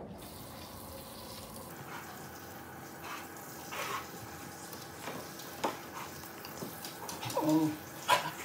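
Kitchen faucet running water into a plastic germination tray of rock wool cubes to soak them, with a steady rush of water and a few light knocks of the tray in the sink. A brief whine about seven seconds in and a sharper knock just after it.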